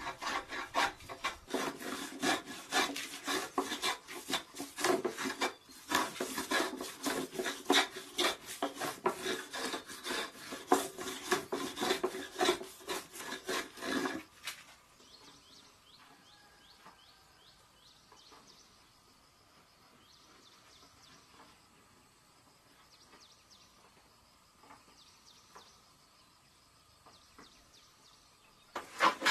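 Wooden hand plane shaving a board in rapid short strokes, each stroke a dry scrape of blade on wood. About halfway through the planing stops suddenly, leaving only faint high chirps and a thin steady high tone.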